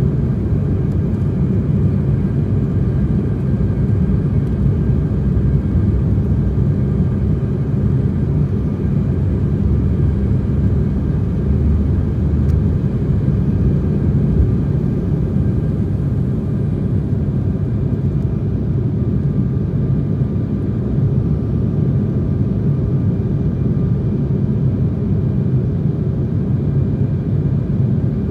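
Steady, loud rumble of an Embraer 175 at takeoff power, heard from inside the cabin beside the wing, with a faint steady whine from the GE CF34 turbofans over it. It carries on unbroken through the takeoff roll and climb-out.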